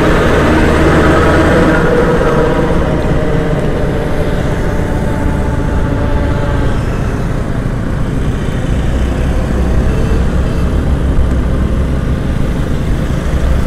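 Motorcycle riding noise: steady wind rush on the microphone with the bike's engine running. Road traffic passes close by, a truck alongside in the first few seconds, fading away.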